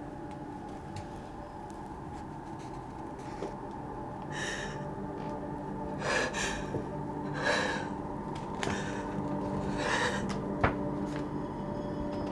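A woman's tense, audible breathing: about five sharp, gasping breaths a second or so apart, over a low steady hum. A single sharp click comes near the end.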